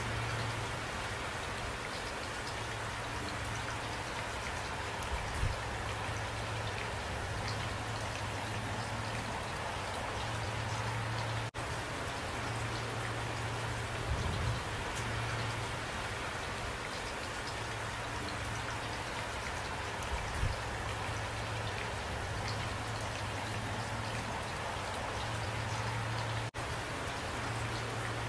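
Steady rain falling, with a few louder drops standing out. The sound cuts out for an instant twice.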